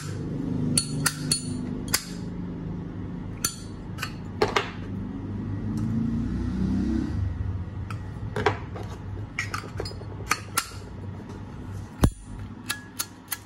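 Zippo lighter being handled: a series of sharp metallic clicks and clinks from the hinged lid snapping open and shut and the case knocking, the loudest near the end.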